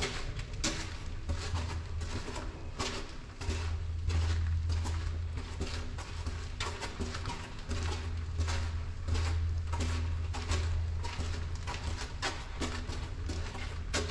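Footsteps walking steadily along a concrete tunnel floor, about one and a half steps a second, over a low rumble that comes and goes.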